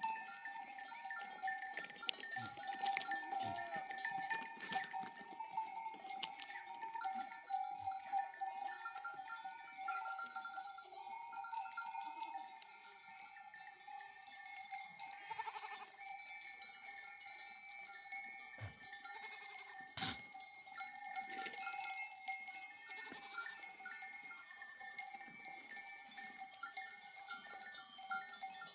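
Bells on a flock of sheep ringing and clinking continuously as the animals move, with a single sharp knock about two-thirds of the way through.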